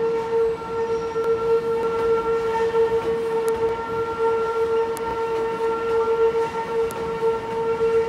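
Electric commuter train at the station: a steady electrical whine held at one pitch, over street noise.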